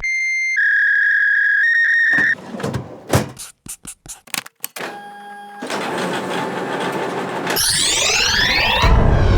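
A rapid montage of unrelated sound effects. It opens with steady electronic beep tones that step in pitch, then a run of sharp clicks and knocks. A brief tone and a noisy stretch follow, then a burst of falling whistling sweeps and, near the end, a loud low rumble.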